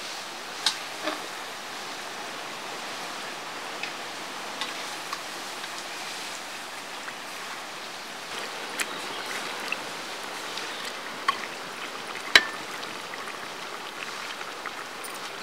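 Raw chicken pieces sizzling in hot oil in a large metal pan over a wood fire, a steady hiss. A metal ladle stirs and now and then clinks against the pan, with the loudest clink about twelve seconds in.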